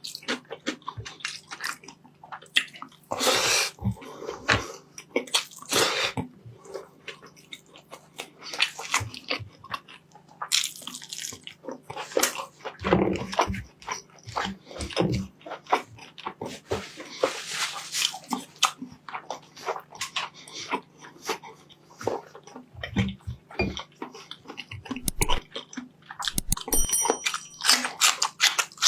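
Close-miked chewing and mouth sounds of a person eating rice and meat: a steady run of short clicks and smacks, louder in a few clusters, over a faint low hum.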